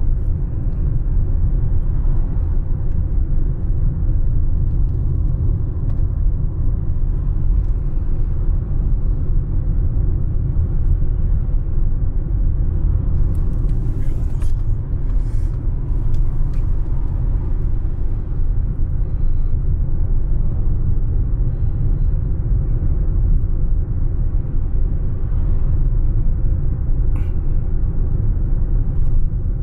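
Steady low rumble of a car's road and tyre noise on a wet road, heard from inside the cabin while driving. A few brief hissing sweeps come about halfway through as oncoming cars pass.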